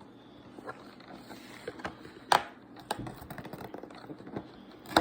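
Scattered clicks and taps of hands working at a cardboard advent calendar compartment, with a sharp snap about two seconds in and another at the end.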